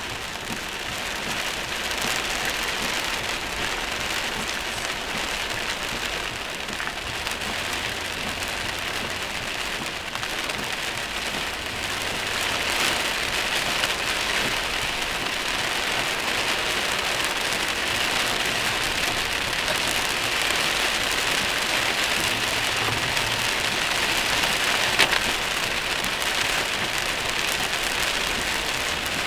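Heavy rain pelting a moving car, a dense steady hiss that grows a little louder about halfway, with the odd sharp drop striking close by.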